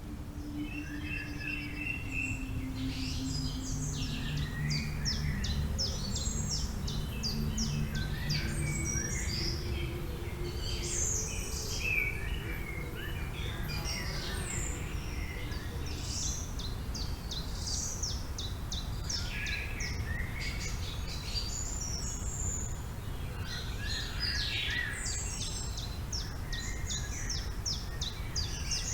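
Several forest songbirds chirping and singing in rapid trilled series, over a steady low rumble of wind. A faint low hum fades out about nine seconds in.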